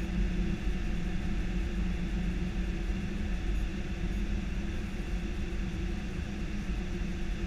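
Steady flight-deck noise of an Airbus A319 on approach to land: an even rush of airflow with a low engine hum beneath it, unchanging throughout.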